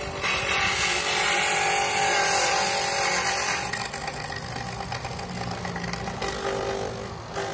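HONSU electric coconut grater running, its motor-driven toothed drum shredding coconut flesh pressed against it: a steady motor whir with grating. The noise eases slightly about halfway through.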